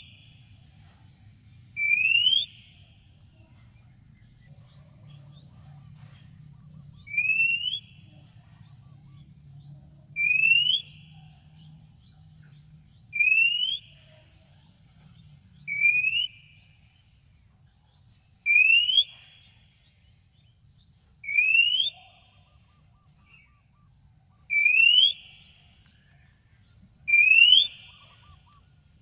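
Oriental magpie-robin (kacer) giving a short, loud, upward-sliding whistle, repeated about every two and a half to three seconds with one longer pause near the start. The calls are identical each time, as in a looped recording used to provoke other magpie-robins into singing back.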